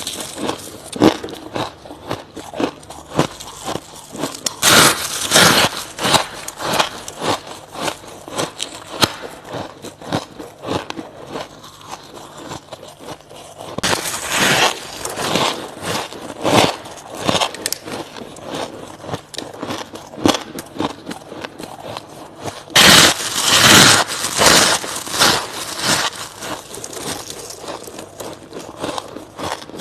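Close-up biting and chewing of soft crushed frost ice, a dense, irregular crackling crunch. There are louder spells of crunching about five seconds in, from about fourteen to seventeen seconds, and around twenty-three seconds.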